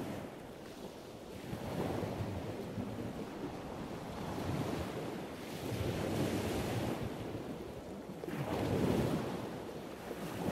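Ocean surf: rushing waves that swell and ease three times, a few seconds apart.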